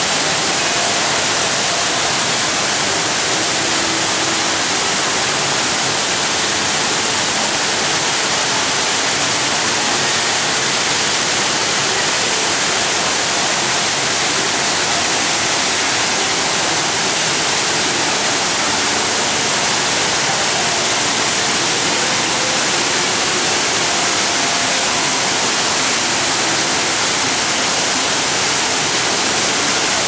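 The Rain Vortex indoor waterfall pouring down into its bowl: a steady, unbroken rush of falling water.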